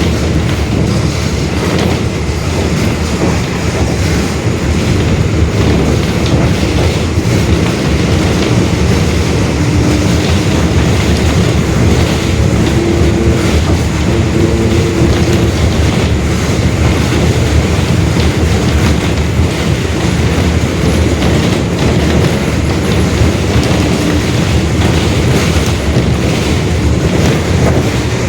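Mercedes-Benz OF-1721 Bluetec 5 city bus driving, heard from inside the cabin: a steady rumble from its front-mounted diesel engine and drivetrain, with road noise and the differential growling.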